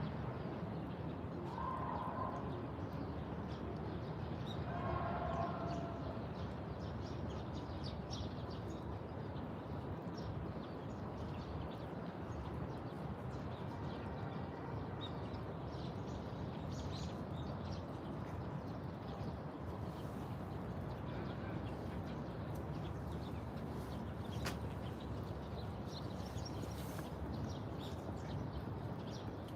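Park ambience: birds chirping now and then over a steady low background hum, with the clearest chirps in the first few seconds.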